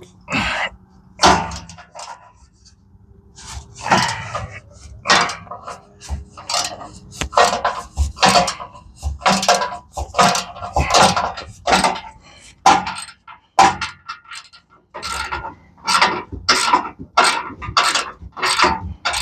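Hand ratchet with a 1/2-inch socket being worked back and forth on the skid plate bolts, a quick burst of clicking on each return stroke, at about one to two strokes a second and quickening about halfway through.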